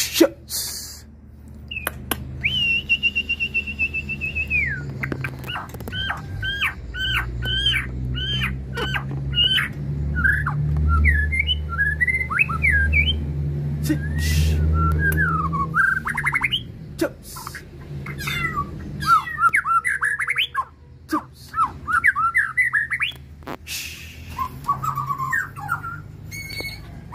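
Male white-rumped shama singing: a long held whistle about two seconds in, then a run of quick repeated notes and varied whistled phrases, with a few clicks over a low rumble.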